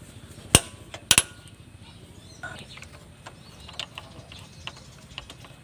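Tools and engine parts clicking and knocking as a motorcycle engine is taken apart: two sharp knocks about half a second apart near the start, then faint scattered clicks.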